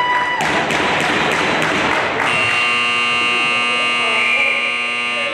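Gym scoreboard buzzer sounding: a steady, harsh horn that starts about two seconds in and holds for about three seconds.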